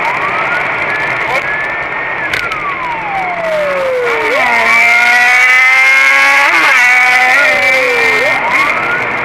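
Police car siren wailing, heard from inside the car, its pitch rising and falling slowly about every four seconds. From about four and a half to eight seconds in, a louder steady engine-like drone joins it and steps up in pitch.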